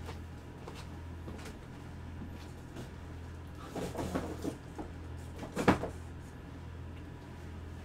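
A few small knocks and rustles, then one sharp knock about two thirds of the way in, over a steady low hum.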